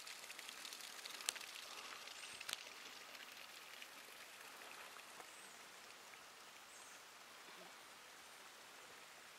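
Faint patter and trickle of water, easing off a little over the seconds, with two sharp clicks in the first three seconds.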